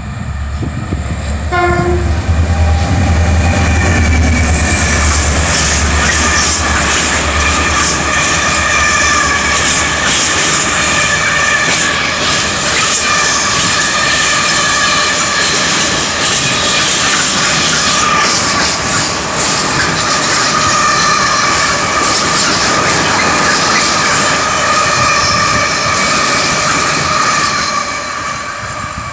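Class 333 diesel locomotive passing with a long intermodal freight train of mostly empty container flat wagons. A deep engine rumble in the first seconds gives way to loud wheel clatter and a long squeal of several steady high tones as the wagons roll by, easing off near the end.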